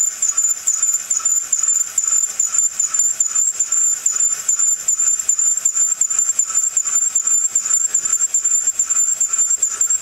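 Forster case trimmer's cutter squealing against a brass cartridge case as the handle is cranked, trimming the case to length. The squeal is high-pitched and steady, with a quick flutter in loudness.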